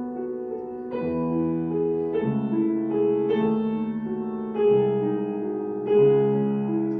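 Grand piano being played solo in a classical piece: sustained chords that change about every second or so, with two louder accented chords near five and six seconds in.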